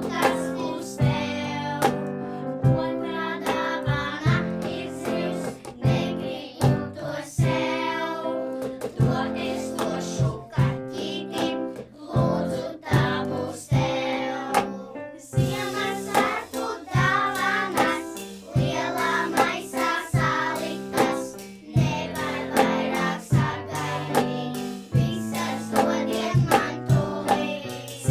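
Children's choir singing a Christmas song with a woman's voice leading, accompanied by keyboard and a cajón with cymbal keeping a steady beat.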